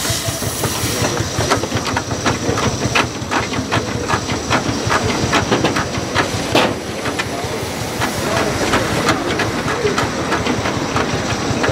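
1920 Advance Rumely steam traction engine running, its exhaust beats and working parts going in a steady rhythm of about three beats a second. Steam hisses over it, loudest in the first second.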